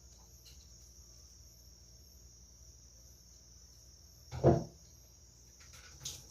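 A single heavy knock about four and a half seconds in, over a steady high-pitched chirring like crickets, with a few faint light clicks near the end.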